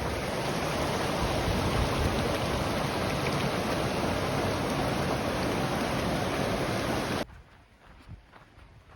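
Creek waterfall: water rushing steadily, a dense even hiss. It cuts off suddenly about seven seconds in, leaving a much quieter stretch.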